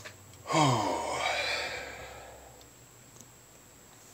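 A person's sigh about half a second in: a breathy exhale with a voice that drops in pitch, fading away over about a second and a half.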